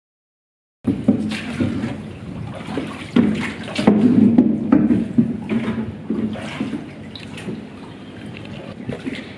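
Rowing-boat oars dipping and pulling through water, with irregular splashes, drips and sloshing. It starts after a moment of dead silence and is busiest in the middle.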